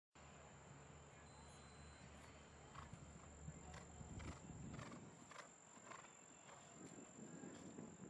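Faint hoofbeats of a show jumper cantering on turf, an evenly spaced beat about every half second, starting near the middle. Under it is a low rumble that fades about halfway through.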